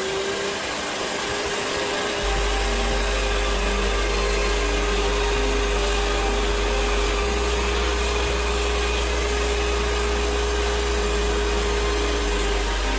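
Canister steam cleaner running while its cloth-wrapped tool is worked over fabric upholstery: a steady hiss with a steady hum, which grows a little fuller about two seconds in.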